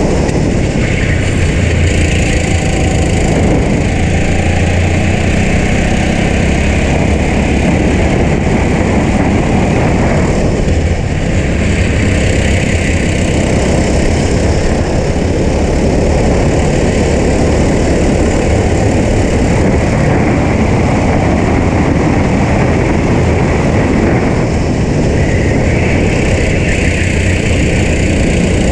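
Onboard sound of a racing kart's small engine running hard at speed, its note changing as the driver lifts and gets back on the throttle for the corners, about ten seconds in and again near the end.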